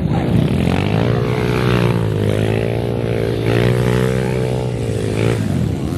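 Motorbike engine running at high, nearly steady revs, as a rider holds the throttle through a stunt. The engine note falls away about five seconds in.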